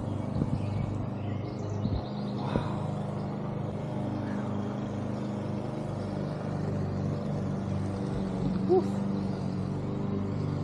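A steady low mechanical hum, several low tones held evenly throughout, with a couple of brief faint sounds over it.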